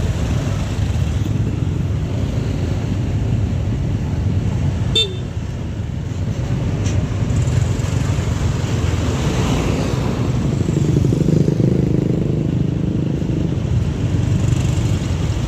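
Steady road-traffic and large diesel engine rumble of passing tour buses, with a short horn toot about five seconds in. The rumble grows louder around eleven seconds in.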